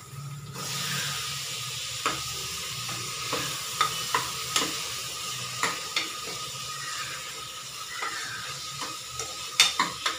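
Tomatoes added to hot oil with fried onion and ginger-garlic paste, sizzling steadily from about half a second in. A spoon stirs the pan, with a dozen or so sharp clinks against the metal, the loudest near the end.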